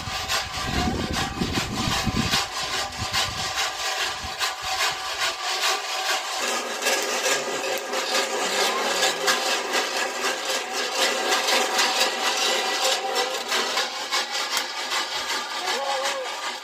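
Dried maize kernels rattling and scraping inside a sheet-metal roasting box over a wood fire as it is stirred by its handle: a continuous rapid rasping rattle as the corn roasts.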